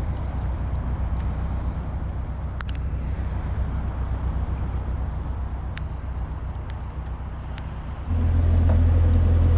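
A narrowboat engine running with a low rumble and a few faint ticks. About eight seconds in, its steady low hum comes up louder.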